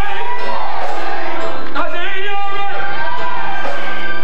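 A man's voice singing in long, bending phrases into a handheld microphone, with steady instrumental backing underneath.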